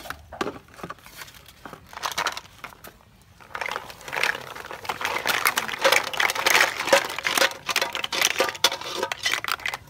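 A few knocks as a steel cooking pot is handled, then, from about three and a half seconds in, hot water pouring from the pot into a plastic colander, with the boiled snail shells clattering against each other and the plastic as they tumble out.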